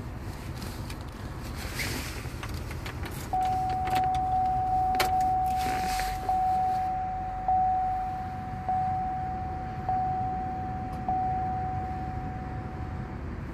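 A car's warning chime dinging at one steady pitch, starting about three seconds in and struck again about every second and a quarter until near the end, inside a Pontiac Grand Prix GXP cabin. A few clicks and knocks come before and around its start. Under it runs the low rumble of the idling 5.3-litre V8.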